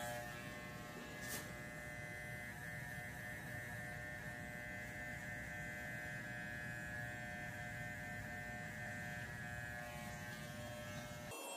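Electric hair clippers running with a steady buzz as they trim the hair at the side of the head for a taper fade, switching off shortly before the end.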